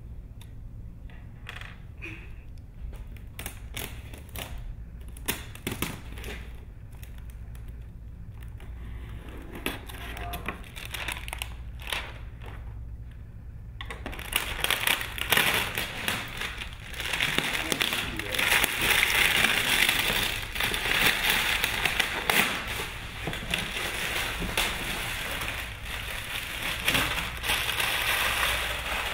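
Unboxing handling noise: scattered clicks and rustles of a cardboard box being opened and reached into, then from about halfway on, loud continuous crinkling of clear plastic packaging being handled.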